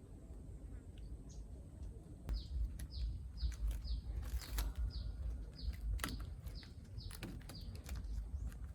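A bird chirping: a quick run of short, falling chirps, about three a second, starting about two seconds in, over scattered sharp clicks and a steady low rumble.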